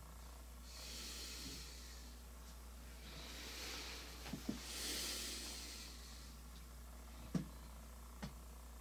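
Two slow, hissy breaths close to the microphone, the second longer, with a few soft clicks over a low steady hum.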